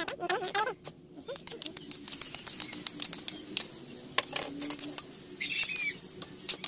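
Metal spatula clicking and scraping against a wok, stir-frying bitter gourd with corned beef and egg, over a steady hiss of frying. A short high chirp sounds near the end.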